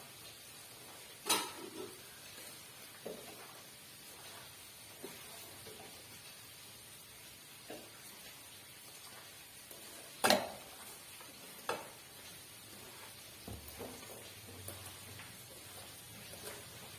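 Raw beef pieces being mixed by hand with ground spices and curry leaves in a pot: quiet rubbing and squelching with a few sharp knocks against the pot, two louder ones about a second in and near the middle.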